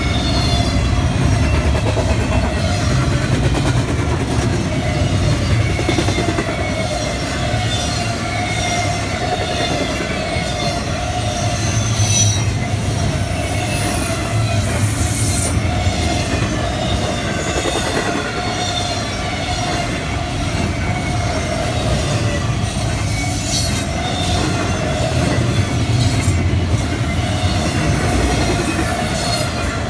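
A freight train of double-stack intermodal well cars rolling past: a steady rumble of steel wheels on rail, with a continuous high wheel squeal and occasional clicks as wheels cross rail joints.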